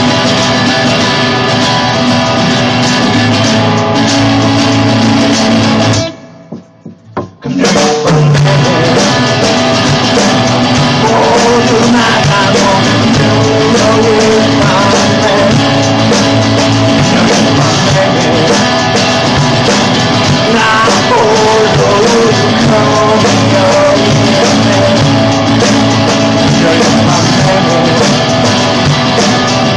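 Live rock song played on a strummed acoustic guitar and a drum kit, with a man singing. The band stops dead for about a second and a half about six seconds in, then crashes back in.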